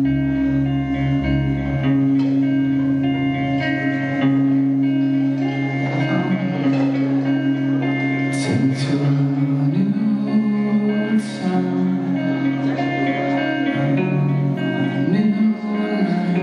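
A live rock band playing: electric guitars and bass holding sustained chords over a drum kit, with a few cymbal crashes midway.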